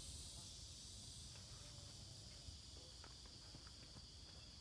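Faint, steady, high-pitched chorus of insects, with a few soft ticks scattered through it.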